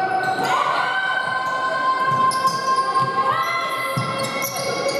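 Rubber squealing on a basketball court floor: several long, overlapping squeaks, with a ball bouncing about four seconds in. The sound echoes in a large hall.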